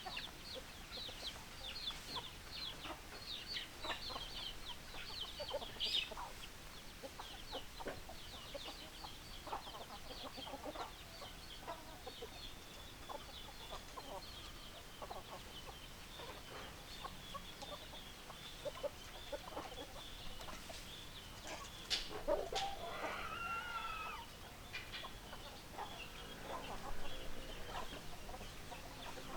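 Chickens clucking, with many short, high calls throughout. About two-thirds of the way through comes one longer call whose pitch bends, like a rooster's crow.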